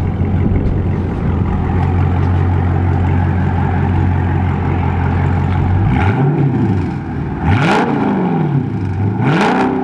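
Straight-piped Dodge Charger 392's 6.4-litre HEMI V8, its mufflers and mid mufflers removed, idling steadily, then revved three times: a short blip about six seconds in, then two bigger revs about seven and a half and nine seconds in, each rising and falling back to idle.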